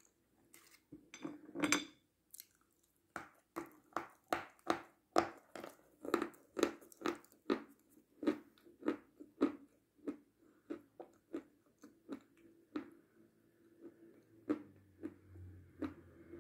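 Close-up chewing of chocolate: a few loud crunching bites, then steady crunching chews about two a second, getting fainter and sparser towards the end.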